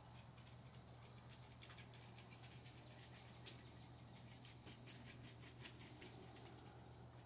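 Near silence: a steady low hum with many faint, irregular ticks, thickest through the middle.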